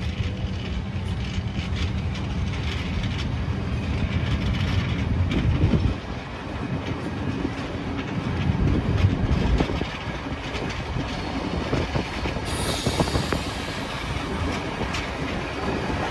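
Train running along the track: a steady low rumble with the clatter of wheels over the rails. A hiss joins about three-quarters of the way through.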